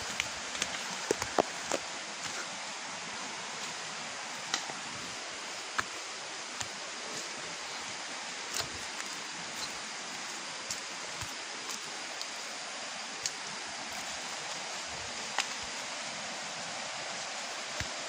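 Steady rush of flowing water from the hill stream, with a few scattered sharp clicks, most of them in the first two seconds.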